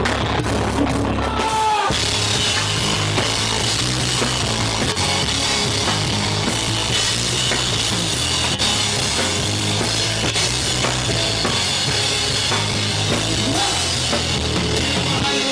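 A live rock band plays loud and dense: a drum kit with cymbals, electric guitars and bass. The bass part changes about two seconds in.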